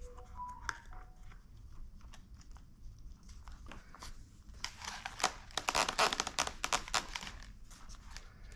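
Wires and the foam airframe of a foam RC plane rustling and crackling as the wires are pushed by hand into the fuselage. There are a few scattered light clicks, then a dense burst of crackly rubbing from about five to seven seconds in.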